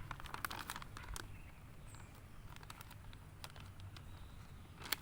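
Plastic ration packaging crinkling and rustling as it is handled, with a cluster of crackles about half a second in and a sharp crackle just before the end.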